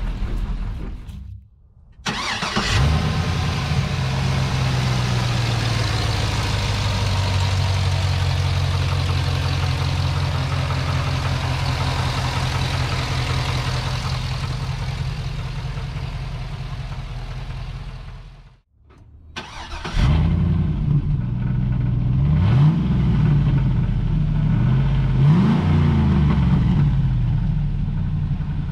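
Chevrolet LS2 6.0-litre V8 starting up and then idling steadily. Later it idles again and is blipped twice, its pitch briefly rising and falling each time.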